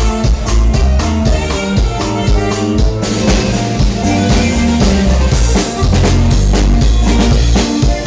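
Dance band music: a drum kit keeps a steady beat over bass and other instruments. About three seconds in, the cymbals play more heavily for a few seconds before the plain beat returns.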